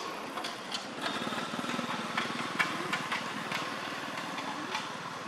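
A small engine running steadily, with a few sharp clicks on top, the loudest about two and a half seconds in.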